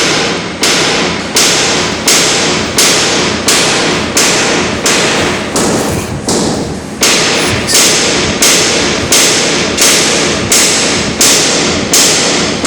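A steady series of loud, sharp hits, about three every two seconds, each dying away before the next.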